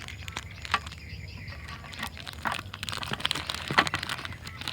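Plastic clicks and crinkling as a GAN 356 ES speed cube is handled, taken out of its packaging and turned, the clicks coming thicker from about halfway through.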